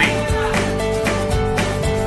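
Background music with sustained tones and a steady beat of about two strikes a second.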